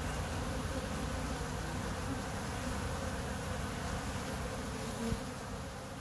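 A crowd of honeybees buzzing steadily as they crawl over and fly around an open hive frame of honeycomb. A brief knock sounds about five seconds in.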